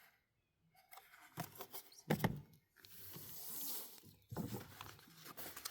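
Handling of the kit's packaging: rustling and a sliding, rubbing noise, with a knock about two seconds in.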